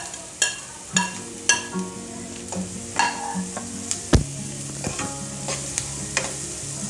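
Spatula stirring diced carrots and onions in a hot nonstick wok: light sizzling with repeated scrapes and taps against the pan, about two a second, and one sharper knock about four seconds in.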